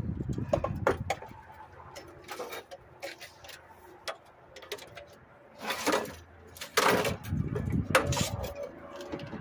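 Irregular metal clanks and knocks from hand tools working on a lawn mower, with a few louder bursts of clatter near the start and in the second half.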